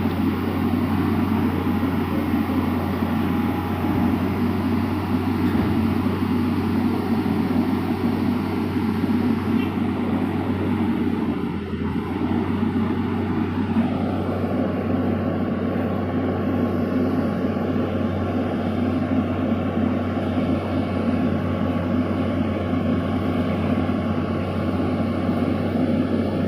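Tata Hitachi excavator's diesel engine running steadily at work, a continuous low drone, its tone filling out slightly about halfway through.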